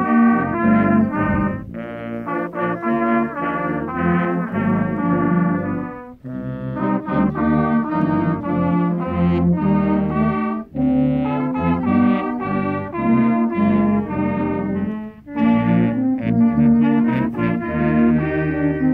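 Church brass choir of trumpets and other brass instruments playing a slow piece in held chords, phrase by phrase, with brief breaks between phrases about every four to five seconds.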